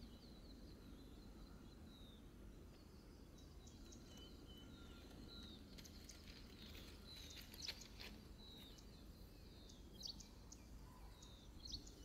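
Faint birds chirping: scattered short, high chirps, several falling in pitch, with a few sharper ones about midway and near the end, over a quiet rural background.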